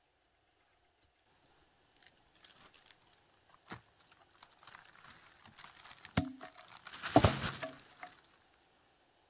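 Tarp rustling and crinkling as it is pulled down from its shelter frame, with a few light clicks, a sharp knock about six seconds in, and the loudest rustle just after.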